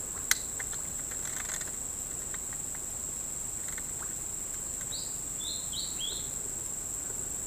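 Steady high-pitched drone of insects, with a single sharp click just after the start and four short chirps from a bird about five seconds in.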